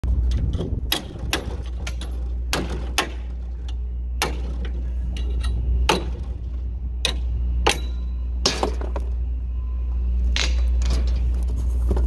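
Hammer blows on the steel cab of an old forklift around its broken door handle. The sharp metal knocks come at irregular intervals, roughly one or two a second, over a steady low hum.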